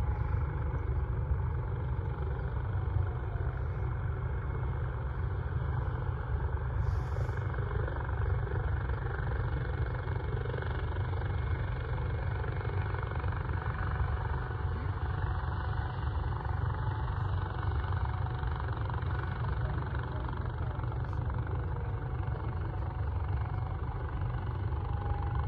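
Steady low engine rumble of a tug pushing an aircraft back, even throughout with no distinct knocks or changes in pitch.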